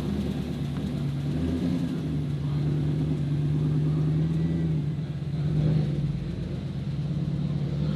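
Car engine running steadily at a low, even speed, with a brief swell in loudness about five and a half seconds in.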